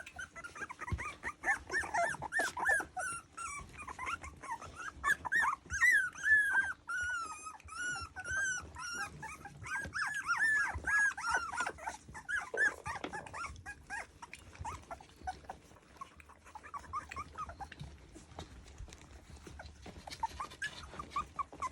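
Three-week-old sheepadoodle puppies whining and squeaking: many short, high, rising-and-falling cries overlapping in quick succession, thinning out after about fourteen seconds to scattered faint whimpers.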